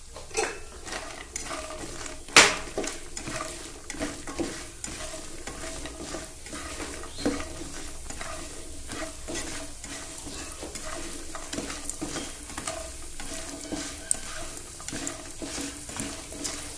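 Daler bori (sun-dried lentil dumplings) sizzling as they fry in hot mustard oil, stirred around the pan with many small scrapes and clicks. There is one loud knock about two and a half seconds in.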